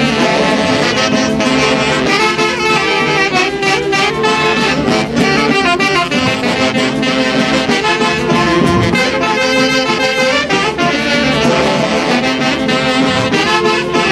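Instrumental passage of a Peruvian orchestra's dance number: saxophones and brass playing the tune over a steady beat.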